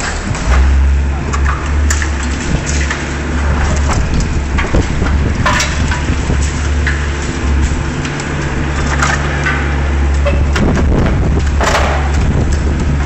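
Liebherr 944 demolition excavator's diesel engine running steadily under load, with scattered cracks, clanks and crunching of steel and rubble as it works at a steel girder. The loudest crashes come about five and a half seconds in and near the end.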